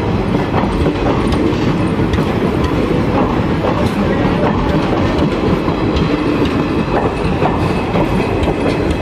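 Indian Railways passenger coaches rolling past on the track, their wheels clattering steadily over the rail joints.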